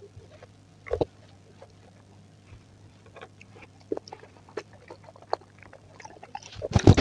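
Close-up eating of fresh fruit: scattered soft wet mouth clicks, one sharper click about a second in, then loud, dense crunching and chewing near the end.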